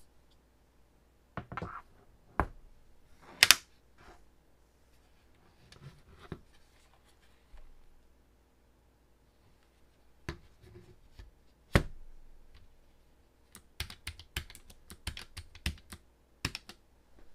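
RK925 foldable mechanical keyboard: scattered single key clicks and clacks, two of them much louder, then a quicker run of keystrokes near the end.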